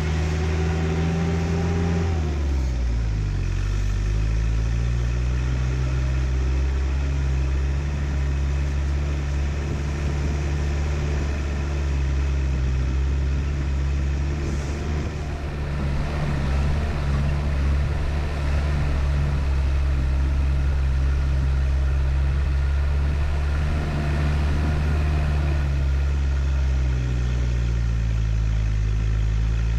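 Four-wheel-drive vehicle's engine running steadily as it drives slowly along a rough dirt track, its note dropping about two seconds in and rising again near the end.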